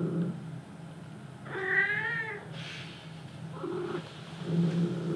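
A cat meowing once, a drawn-out meow with a wavering pitch about a second and a half in.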